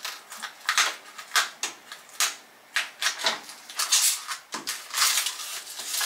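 Plastic crinkling and rustling, with light irregular clicks and taps of items and film handled in a plastic refrigerator drawer.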